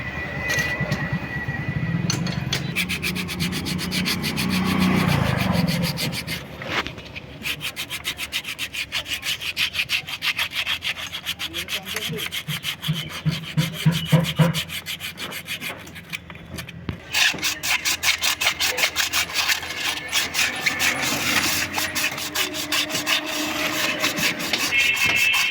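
Rhythmic back-and-forth scraping strokes from hand work on metal, about one and a half strokes a second, each with a dense rattling texture.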